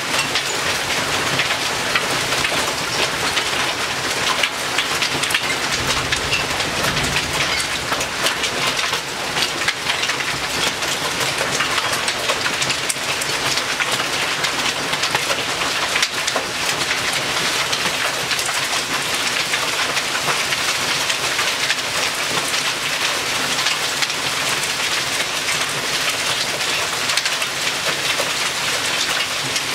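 Hail and rain pelting down steadily: a dense rattle of many small hailstone impacts over the hiss of rain. A brief low rumble comes about six seconds in.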